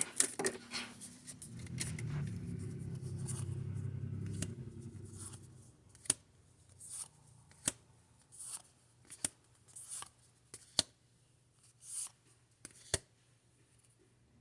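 Trading cards being handled and flipped through, short scraping swishes and light clicks every second or so. A low rumble runs through the first few seconds.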